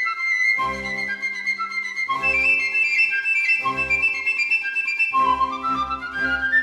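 Background music: a flute-like melody held over a pulsing accompaniment that repeats about every second and a half.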